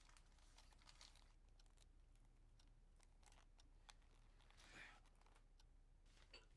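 Near silence: quiet room tone with a low hum and a few faint scattered clicks and rustles.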